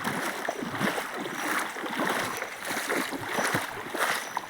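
Running, splashing water: a steady uneven rush full of small irregular splashes.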